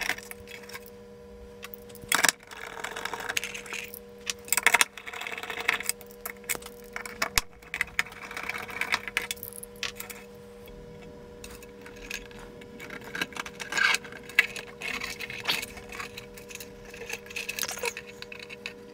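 Scattered clicks, knocks and rustles of hands working circuit boards and ribbon cables out of a plastic instrument case, with a few sharper knocks among them. A faint steady hum runs underneath.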